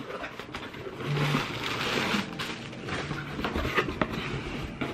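Cardboard shipping box being opened by hand: flaps and packing rustling and scraping unevenly, with scattered small clicks.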